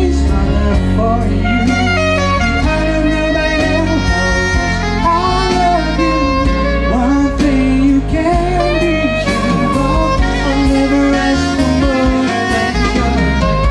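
Live band music with a male singer singing into a microphone over electric guitar and band accompaniment.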